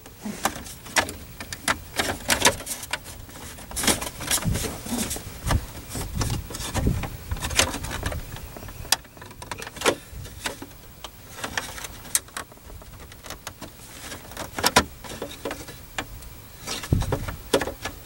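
Plastic steering-column trim on a 1996 Chevrolet Suburban being pulled and worked loose by hand: irregular clicks, creaks and knocks, with a few dull thumps.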